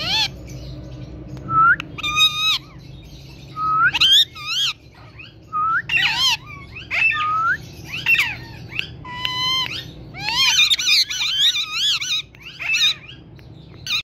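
Indian ringneck parakeet giving a series of short, high-pitched calls that rise and fall sharply in pitch. The calls come every second or two and crowd into a rapid run near the end.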